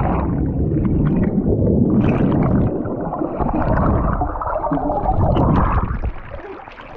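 Muffled underwater rumbling and gurgling of water and bubbles as a swimmer moves underwater, heard through a submerged camera. It fades out about six seconds in.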